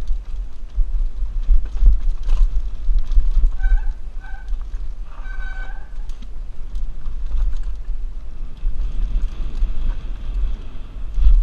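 Wind buffeting a helmet-mounted action camera's microphone during a fast mountain-bike descent, a deep fluttering rumble, with the bike clattering and rattling over rough trail. There are three short pitched squeals near the middle.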